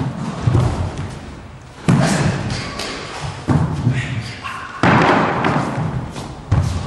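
Heavy thuds of bodies and feet striking the floor during knife-defence drills, five sudden impacts about a second and a half apart, each ringing on briefly in a large hall.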